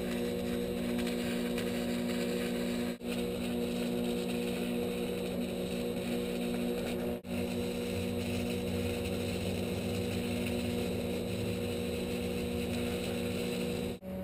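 Electric arc welding on steel: the arc crackling and sizzling steadily over a constant electrical hum from the welding machine. The sound cuts out sharply for an instant about 3 and 7 seconds in.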